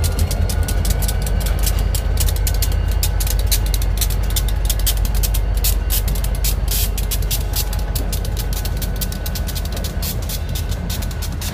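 Two diesel freight locomotives rumbling past at low speed, then autorack cars rolling by, their wheels clicking and clattering over the rail joints and crossing.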